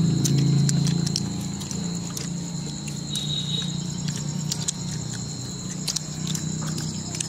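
A steady low hum, louder at the start, under a high steady whine, with scattered sharp clicks and crackles from people tearing and eating grilled chicken by hand.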